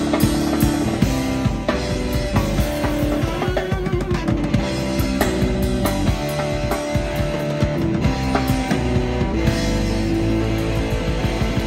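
Live rock trio playing an instrumental passage: electric guitar holding and bending notes over bass guitar and a full drum kit with a steady beat.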